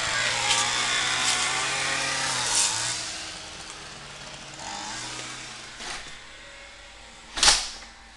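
A motor vehicle's engine running outside, loud at first and fading away over the first three seconds, with a quieter swell about five seconds in. A single sharp thump near the end.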